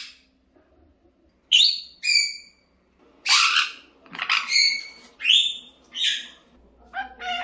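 African grey parrot calling: a quick run of short, loud whistles and squawks, some falling in pitch, starting about a second and a half in.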